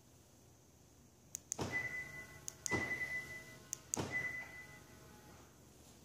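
Car door locks worked three times in quick succession (lock, unlock, lock) from the remote key: each time a sharp click and clunk of the lock actuators, followed by a short high confirmation beep, the middle beep the longest. This lock-unlock-lock sequence is the command that tilts the sunroof open.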